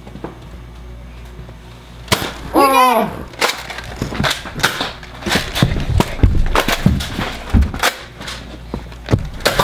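A sudden loud yell about two and a half seconds in, then a rapid, irregular run of clacks, knocks and thumps: Nerf dart blasters firing and players scuffling at close quarters.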